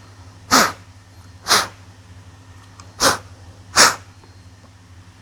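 Four sharp puffs of breath blown into a smoke detector head to clear out the smoke particles left after a smoke test, so the detector does not trigger again.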